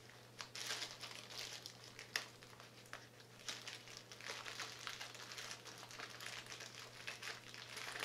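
Plastic and paper wrappers of bandage and gauze packets crinkling irregularly as hands sort through a first-aid kit, over a steady low hum.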